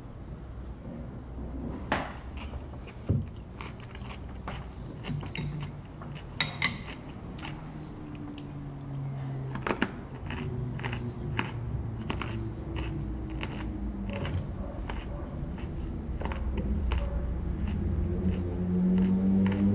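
Spoon and tableware clinking against a bowl and glass on a wooden table during a meal, scattered sharp clicks over a low steady hum. Near the end a pitched drone swells up and grows louder.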